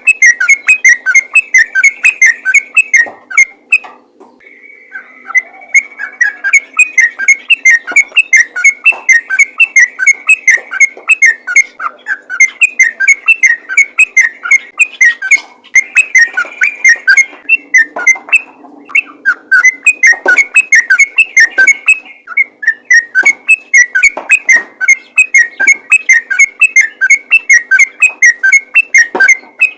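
Yellow-vented bulbul singing a fast, continuous run of short whistled notes, about four or five a second, broken by brief pauses about 4 s and 18 s in. This is the vigorous 'ropel' song that bird keepers play to call other bulbuls in.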